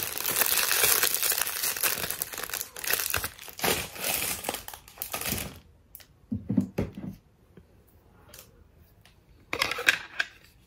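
Clear plastic packaging bag crinkling as a phone case is unwrapped, continuous for about five and a half seconds. Then it goes quieter, with a few soft knocks and a short rustle near the end as the case is handled and fitted onto a phone.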